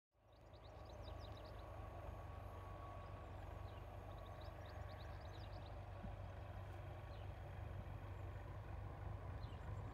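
Low, steady rumble of Class 37 diesel locomotives heard from a distance, with birds chirping in short runs about a second in and again about four seconds in.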